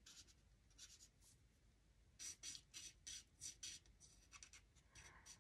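Faint scratching of a Stampin' Blends alcohol marker tip on vellum: short, quick coloring strokes as pink is filled into a flower's petals, busiest around the middle.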